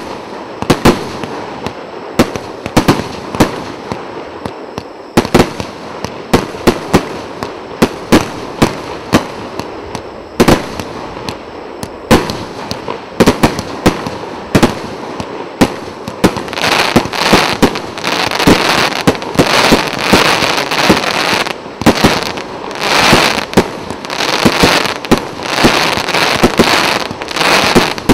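A 168-shot 1.25-inch "Imperator" fireworks cake firing in sequence: sharp shot and burst bangs, about one or two a second. Past the halfway point, bursts of dense crackling fill the gaps between the bangs.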